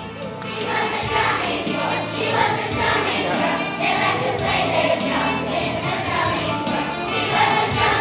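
A choir of young children singing a song together.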